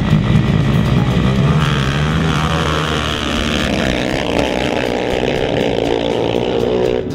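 Two sport ATVs launching off the start line and accelerating hard down a dirt drag strip, their engines revving up to a high pitch after the first second or so.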